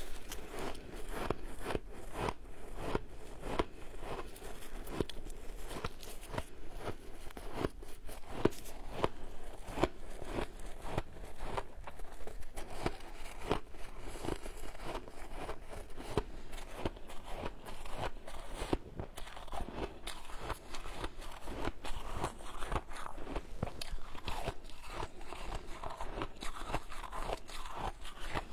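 Shaved ice being chewed close to the microphone: a dense, irregular run of crisp crunches, many each second.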